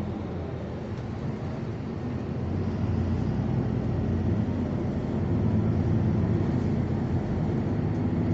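A city bus's engine and road noise heard from inside the cabin as it drives, a steady low rumble that grows louder about two and a half seconds in.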